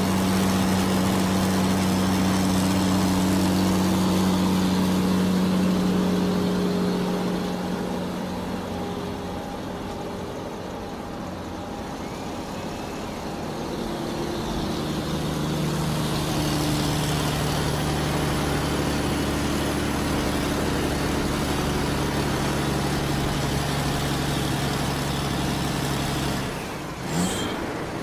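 Vehicle engine running at a steady pitch. It falls off in level through the middle, then settles at a slightly lower steady pitch, with a brief swooping sound near the end.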